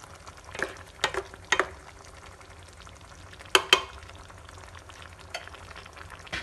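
A cooking utensil stirring a vegetable stew in a dark pot, knocking and scraping against the pot about seven times, loudest twice in quick succession about three and a half seconds in. A faint steady hiss runs beneath.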